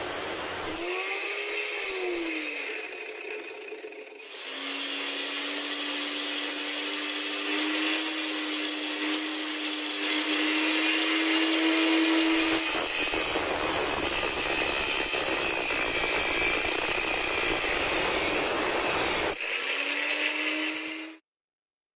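Angle grinder in a bench stand grinding a steel bolt, then its motor whining steadily as it runs, the pitch slowly rising. Later comes a rougher, noisier grinding stretch, and a short rising whine that cuts off suddenly near the end.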